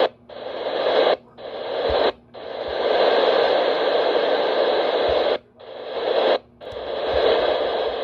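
Loud hissing static from the RadioShack 12-519 radio's speaker, with no station tuned in. The hiss cuts out briefly four times, about a second in, two seconds in, and twice more past five seconds, swelling back each time.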